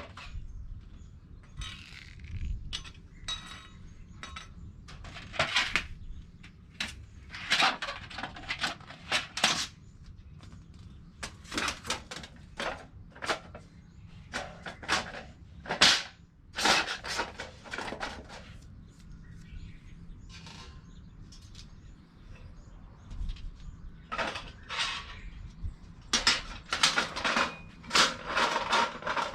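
Irregular clatter of light knocks and clinks, coming in clusters with short lulls between, over a steady low rumble.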